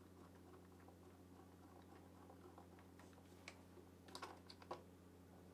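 Near silence with a few faint clicks and ticks of a Phillips screwdriver driving a screw into a dishwasher's plastic float base, bunched a little after the middle.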